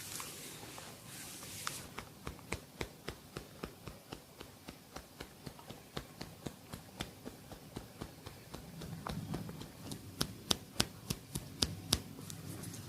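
A barber's hands tapping on a head during a head massage: a long, even run of sharp taps, about three or four a second, louder near the end. A soft rubbing hiss comes before the taps begin.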